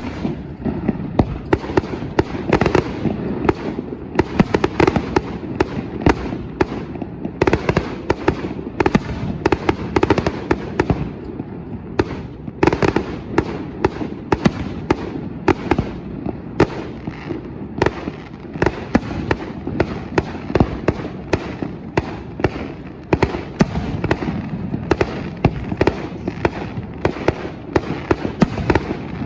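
Aerial fireworks display: a dense, continuous barrage of shell bursts, several sharp bangs a second over a steady rumble.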